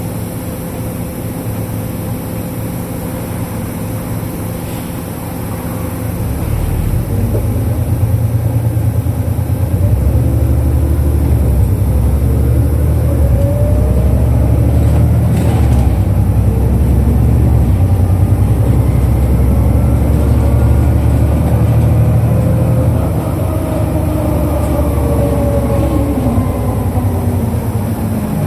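Interior running sound of a 2005 Isuzu Erga KL-LV834L1 diesel city bus. A low engine note grows louder about six seconds in as the bus accelerates, with whining tones that climb in pitch. The engine eases off in the last few seconds.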